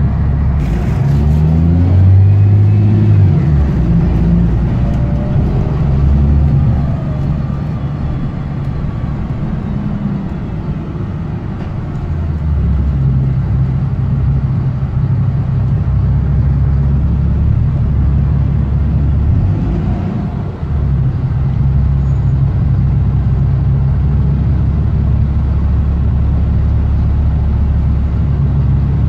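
BMC Condor single-deck bus engine heard from inside the passenger saloon while driving: a loud low drone that climbs as the bus pulls away near the start, eases off briefly, then holds steady. The raspy note comes from a blown exhaust.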